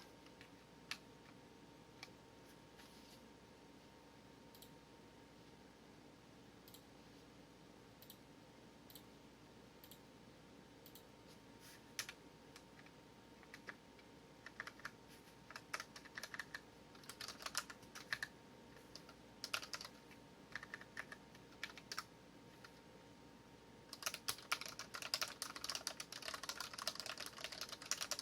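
Key presses on a Dareu EK820 mechanical keyboard with red linear switches: scattered single keystrokes at first, growing more frequent, then fast continuous typing from about 24 seconds in.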